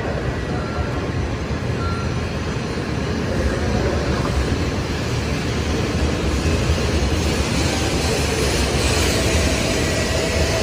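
Shinkansen train pulling out of the station, a steady rumbling running noise that grows louder about three and a half seconds in and brighter as the train gathers speed past the platform.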